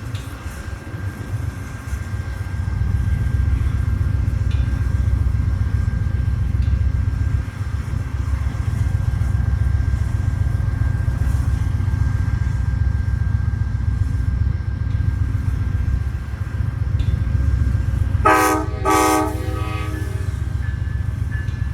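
Amtrak passenger train rumbling steadily, then its locomotive air horn sounds two short blasts near the end.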